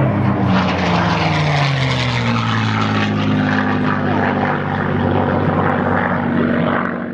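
Supermarine Spitfire Mk IX's Rolls-Royce Merlin V12 engine at display power in a pass, its note dropping in pitch over the first couple of seconds as it goes by, then running steadily until it cuts off at the end.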